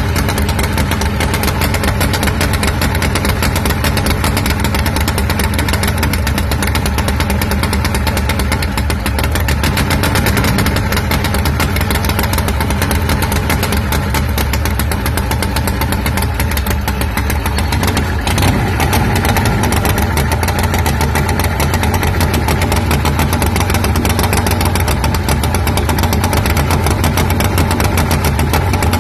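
Tecumseh V-twin engine on a racing lawn mower running steadily, firing out of a short open exhaust pipe. Its note shifts slightly about eighteen seconds in.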